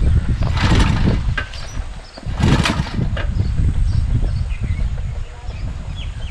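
Small petrol engine of a portable water pump running, its level rising and falling, with two brief louder bursts about one and two and a half seconds in. The engine runs on a freshly fitted spark plug, fitted because it kept stalling.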